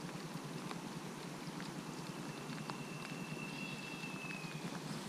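Light rain falling, an even patter with scattered drops ticking close by. About two seconds in, a thin high whistle holds steady for a couple of seconds, then dips slightly in pitch and fades.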